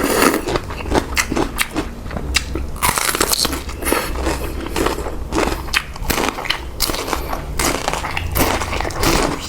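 Close-miked eating of spicy pork noodle soup: irregular crunching, biting and chewing, with sharp wet clicks and short noisy smacks throughout.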